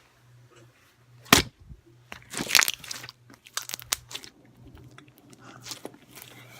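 Slime being squeezed and worked by hand, giving sharp pops and crackles: one loud pop just over a second in, then a run of crackling and scattered clicks.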